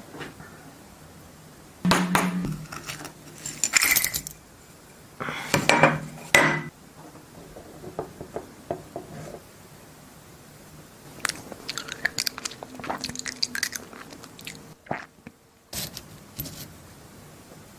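Hard clattering and crunching in three loud bursts in the first seven seconds, as a hammer strikes at the table. Later comes a run of light metallic clicks and clinks as coins are picked through by hand.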